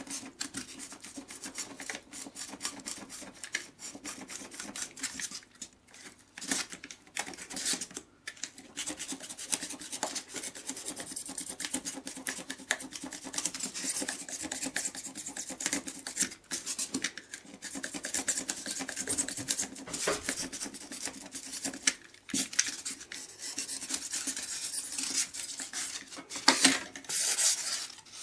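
Craft knife cutting and shaving the edge of a styrofoam sheet to round it off: a continuous run of quick, scratchy rasping strokes, louder for a moment near the end.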